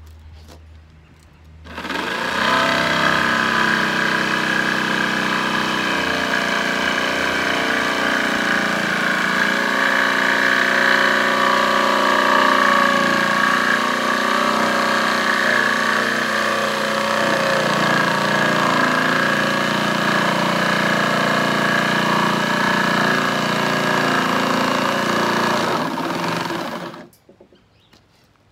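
Corded jigsaw running and cutting through plywood, starting about two seconds in, running steadily, and stopping near the end.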